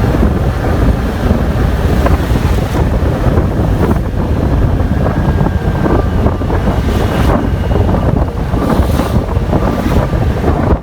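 Strong wind buffeting the microphone: a loud, steady low rumble with rushing noise on top.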